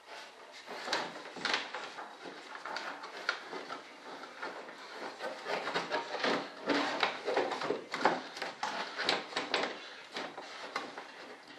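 Irregular clicks, knocks and rustling of hands handling parts inside a model jet's fuselage.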